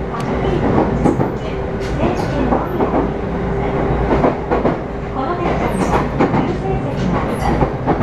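Running noise of a Karasuyama Line train heard from inside the carriage: a steady rumble of the wheels on the track, with irregular clicks and clacks from the rail joints and a faint steady hum underneath.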